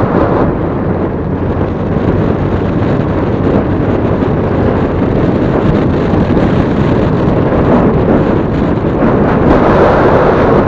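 Wind rushing hard over the microphone of a riding Honda Click 125 scooter, mixed with road and engine noise, a little louder near the end.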